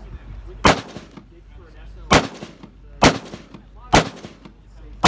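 Rifle fired five times, single aimed shots spaced roughly a second apart.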